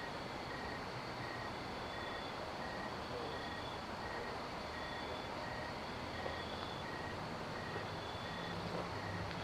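Insects calling in a steady chorus, with one repeating short chirp about twice a second and a fainter, longer higher note every second or so, over a steady low rumble.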